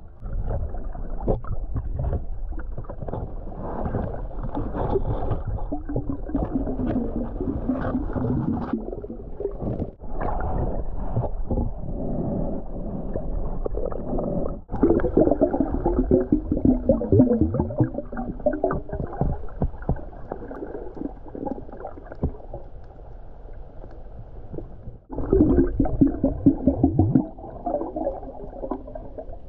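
Muffled underwater sound picked up by a submerged camera: water swishing and gurgling, with crackling clicks and wavering moans. It breaks off abruptly three times, at about ten, fifteen and twenty-five seconds in.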